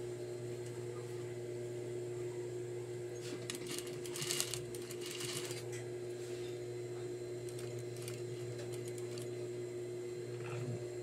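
Juki industrial sewing machine running with a steady hum while stitching fabric over a cardboard guide, with louder patches of stitching and rustling around four to five seconds in and fainter ones a few seconds later.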